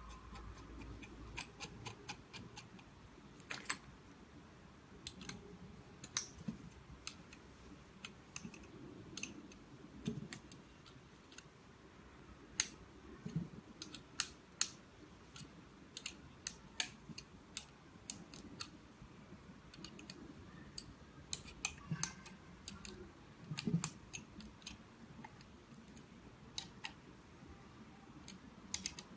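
Irregular light metallic clicks and taps with a few soft knocks: small screws and a small wrench worked against the metal body of a grouting pump as its legs are bolted on.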